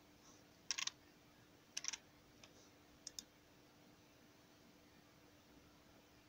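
Computer mouse button clicking: two louder bursts of several quick clicks about a second and two seconds in, then a softer press-and-release pair about three seconds in, over a faint steady hum.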